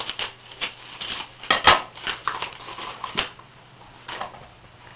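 Paper and plastic rustling and crinkling as a padded mailer is opened by hand, with a few sharp clicks and snaps; the handling dies down after about three seconds, with one more short rustle later.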